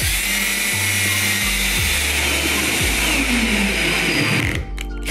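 Power drill spinning a twist bit into a car's painted trunk lid, a high whine that stops about four and a half seconds in.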